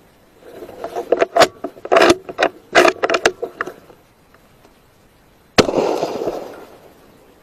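A single rifle shot about five and a half seconds in: a sudden loud crack whose echo rolls away over about a second and a half. Before it, from about half a second to three and a half seconds in, comes a quick run of sharp clicks and knocks.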